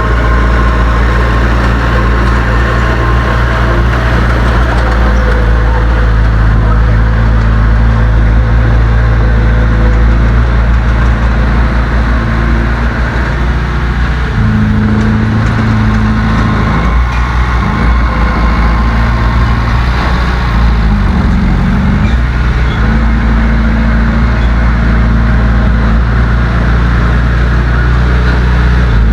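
Heavy diesel engine of earthmoving machinery running loudly and continuously, its pitch shifting up and down for a stretch about halfway through as the engine is revved and eased under load.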